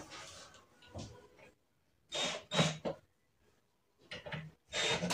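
Short knocks and scrapes of a white flat-pack particleboard cabinet being pressed and handled, in small clusters: one about a second in, three close together a little past the middle, and a few more near the end.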